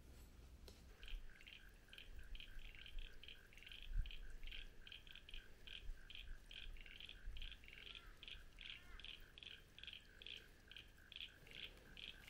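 Faint, rapid chirping call, repeated about four times a second without a break, from a small calling animal. There is a single low thump about four seconds in.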